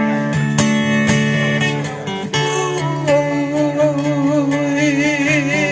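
Acoustic guitar playing a short instrumental passage between sung lines. About halfway through, a long held note with a wavering vibrato comes in over the guitar.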